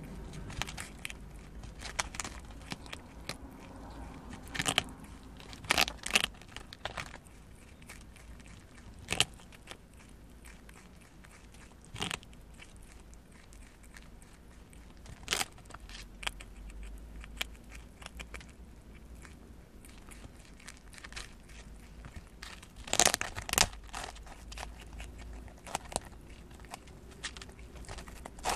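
A prairie dog gnawing and crunching on a whole ear of corn in its green husk: irregular crisp bites and crunches, some single and some in short clusters, the loudest cluster about 23 seconds in.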